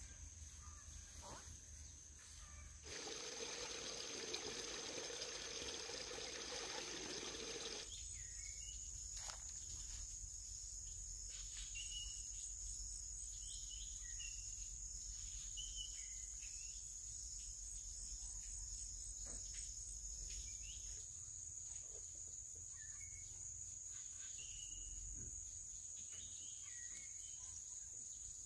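Steady high-pitched insect chorus with short bird chirps scattered through it. For a few seconds near the start, a louder even rushing noise covers it.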